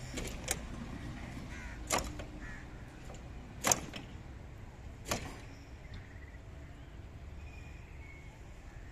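Four sharp knocks about a second and a half apart, the third the loudest, over a low steady outdoor rumble.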